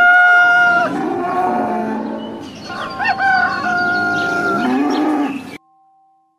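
Farm animal calls: a long crowing call, then a second long call with a sharp rise at its start, then a lower call. All of it cuts off suddenly about five and a half seconds in.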